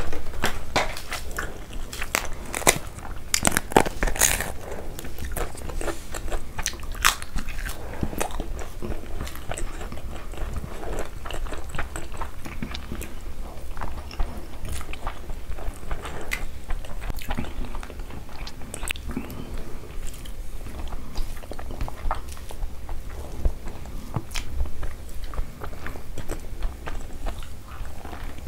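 Close-miked eating sounds from two people eating rice and curry by hand: chewing, crunching and wet mouth sounds, with many sharp clicks and snaps throughout, busiest in the first eight seconds or so.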